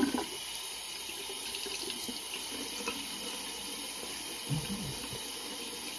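Water tap running steadily into a sink.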